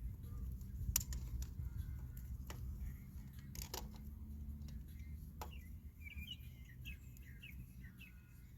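Small birds chirping in the background, mostly in the second half, with a few sharp clicks scattered through and a steady low rumble underneath.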